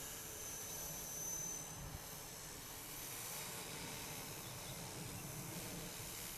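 Battery-electric 500-size RC helicopter in flight at a distance: a steady high motor whine over the rotor noise.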